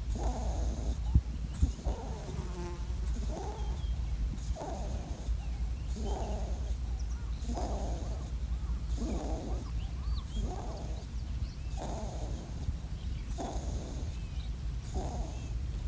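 Wounded wild European rabbit lying on its side, making a short vocal sound over and over, about one every second and a half. The rabbit is badly injured, and the uploader wonders whether it is near death.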